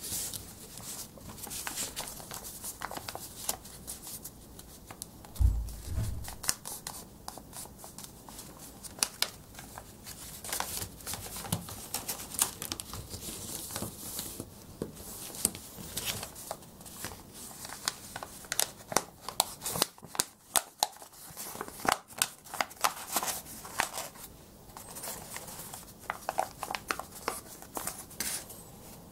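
A sheet of A4 paper being folded and creased by hand: crisp rustling and crinkling with many short, sharp crackles as the folds are pressed flat. A dull low thump about five seconds in.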